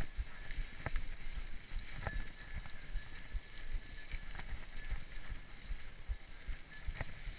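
Mountain bike rolling along a dirt trail covered in dry leaves: a continuous crunch and rustle of tyres through the leaves, with frequent low bumps and a few sharp knocks or rattles from the bike over the rough ground.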